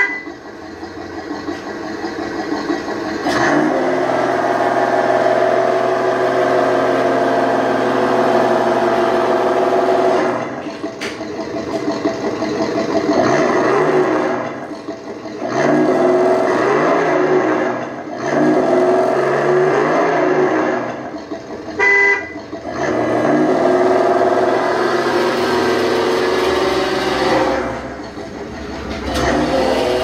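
Simulated engine sound from the Tamiya Toyota Tundra High-Lift RC truck's multifunction control unit, played through its small speaker and rising and falling in pitch as the truck drives. A short horn toot sounds about 22 seconds in.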